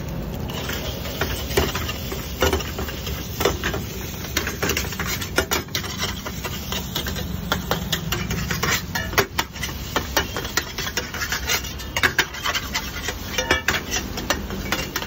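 Slotted metal spatula scraping and clattering against a frying pan as eggs are scrambled into onion-masala for egg bhurji. It makes fast, irregular clicks and scrapes, starting about a second and a half in, over a steady low rumble.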